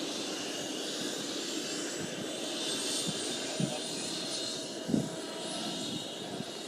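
Helicopter running steadily, its engine noise and high whine continuous, the whine rising slowly in pitch. Two short thumps come a little past the middle.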